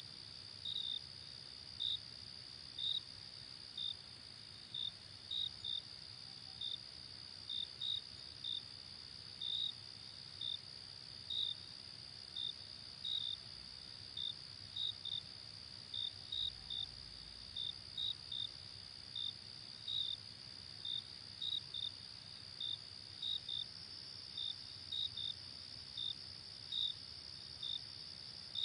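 Crickets at night: a steady high-pitched trill from many crickets, with a nearer cricket giving short chirps over it, irregularly, about one or two a second.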